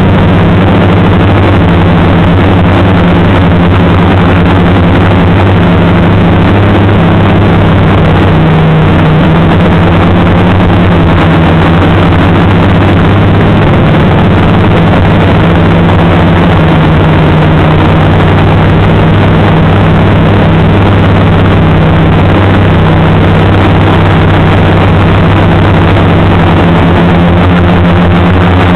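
Turnigy 2213N brushless motors and propellers of an FPV multirotor running steadily in flight. The sound is a loud, low, steady hum under a heavy hiss.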